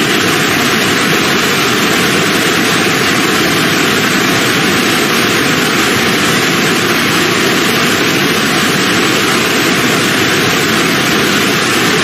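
Man-made waterfall: water cascading down a rock face into a pool, a loud, steady rushing.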